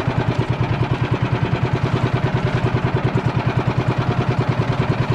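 Small engine running steadily at a low, even speed, with a throbbing pulse about ten times a second.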